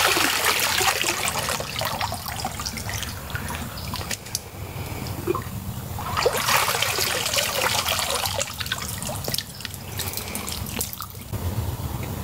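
Hands splashing and sloshing in shallow swamp water, with small drips and trickles. There are two louder bouts of splashing, one at the start and one about six seconds in.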